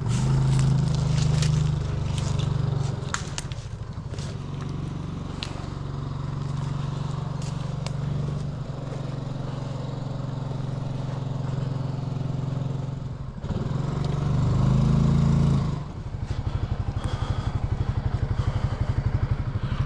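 Utility vehicle's engine running at low revs, with scattered clicks and scrapes over it. It picks up briefly near the end, then drops back to an even idle.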